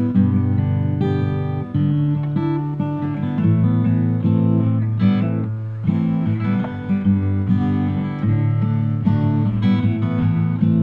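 Background acoustic guitar music.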